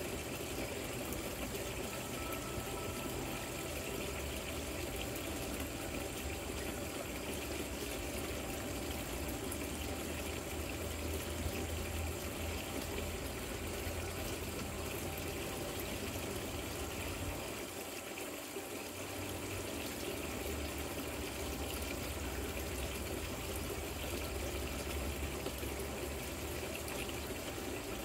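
Water trickling and splashing down a rock-wall patio fountain, with a steady low hum that drops out briefly about two-thirds of the way through.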